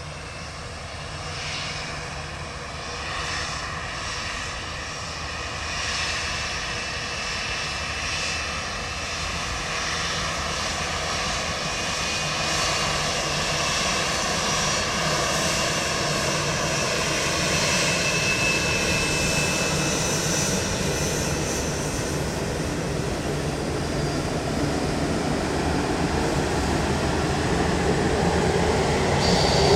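Boeing 787-8 Dreamliner's twin Rolls-Royce Trent 1000 turbofans running up to takeoff power, a rumble with a whine that slowly rises in pitch and grows steadily louder.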